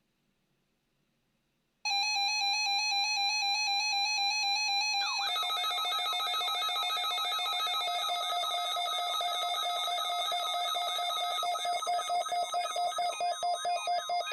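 NOAA Weather Radio warning alarm sounding during its required weekly test. A steady electronic alarm tone starts about two seconds in. A few seconds later it turns into a rapidly pulsing, chirping alarm at about three pulses a second.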